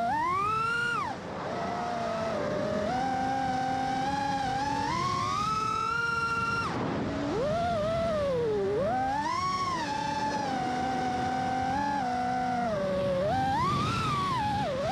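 FPV quadcopter's brushless motors whining, the pitch sliding up and down as the throttle changes. The whine falls away sharply about a second in and again about seven seconds in, then climbs back.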